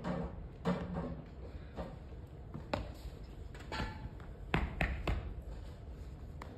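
Scattered light knocks and taps, several close together about four and a half to five seconds in, over a low steady room hum.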